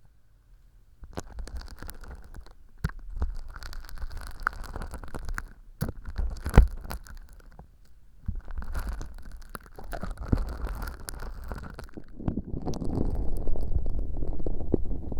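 Tweezers working sticky, glitter-filled slime right against an uncovered binaural ear microphone: close, sticky crackling and squelching with small sharp clicks, coming in bursts with brief pauses. The sound grows fuller and louder about three quarters of the way through.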